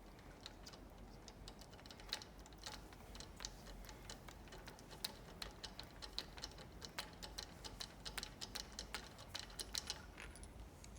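Light, irregular metallic clicks and ticks, several a second, from a hand tool loosening socket cap screws on the discharge valve clamp of a diaphragm dosing pump.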